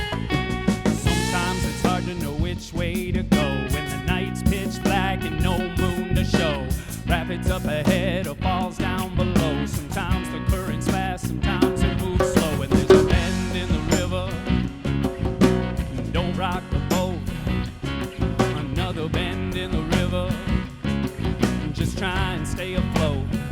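A band playing a song live, with guitar and a drum kit keeping a steady beat.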